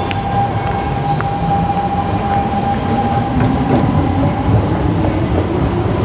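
Singapore MRT electric train rumbling, its motor whine rising steadily in pitch as it accelerates, while a steady hum fades out about halfway through.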